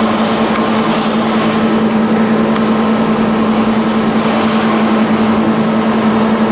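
Robotic arc welding with a Cloos 353 welding system: a loud, steady hiss of the arc over a constant hum, with faint crackle.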